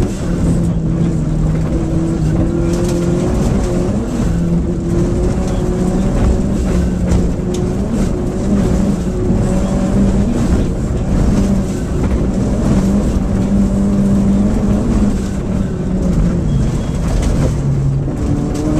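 Rally car engine running hard at high speed on a gravel stage, heard from inside the cabin over dense road and tyre noise. The engine note holds high, dips briefly near the end as the car slows, then picks up again.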